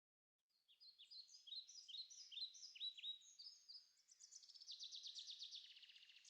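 Birdsong: a run of quick high chirps, each sliding downward in pitch, then a fast, even trill of rapid notes near the end.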